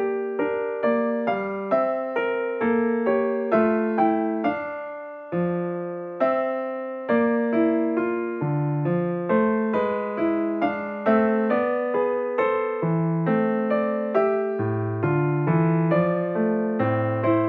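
Slow piano music: notes and chords struck about every half second, each left to ring and fade.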